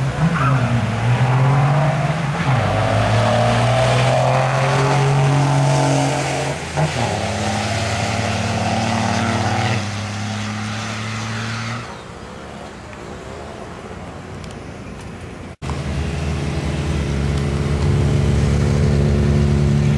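Dodge Cummins diesel pickup trucks launching down a drag strip: a loud engine note rises, drops in pitch at gear shifts about 2.5, 7 and 10 seconds in, then fades as the trucks pull away. After a short break, a steady engine drone runs near the end.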